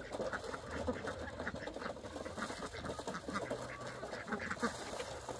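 Several domestic ducks quacking: many short quacks in quick, overlapping succession.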